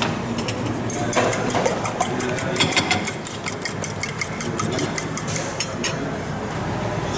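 A metal fork beating eggs in a stainless steel bowl: rapid, even clinks of the tines against the bowl, about six or seven a second, stopping about six seconds in.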